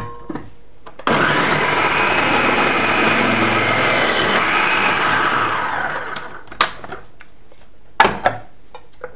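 Bosch food processor motor spinning its grating disc and shredding a carrot fed down the tube, starting suddenly about a second in and winding down with a falling whine after about five seconds. A few sharp plastic clicks follow as the lid and disc are handled.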